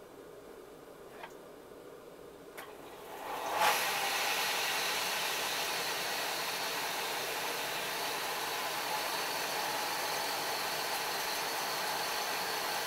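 Belt grinder starting up about three seconds in, its motor spinning up quickly and then running steadily, after two light clicks.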